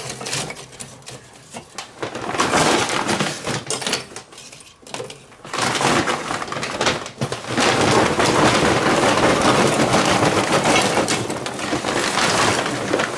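Large lumps of charcoal clattering and crunching into a kamado grill's ceramic firebox. A few pieces are set in by hand first, then from about five and a half seconds in they are tipped from a paper sack in one long, loud pour.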